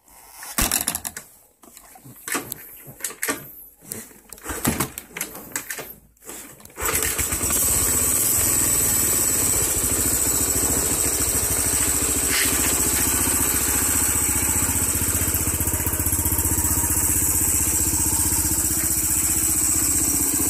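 Honda CT110 Hunter Cub's single-cylinder four-stroke engine being started: about seven short surges over the first seven seconds as it is cranked, then it catches and runs steadily. Its exhaust note is one the owner calls odd.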